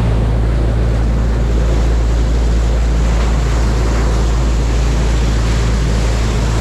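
Churning wake water rushing and splashing along the hull of a boat running at speed, over a steady low engine drone, with wind buffeting the microphone.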